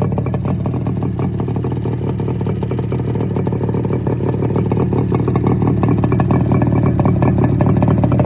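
Yamaha RD250's air-cooled two-stroke twin running through its stock mufflers with the silencer baffles removed, a rapid, unmuffled pulsing exhaust note. It runs steadily and grows a little louder over the second half.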